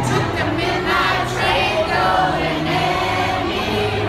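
Music playing with a crowd of many voices singing along.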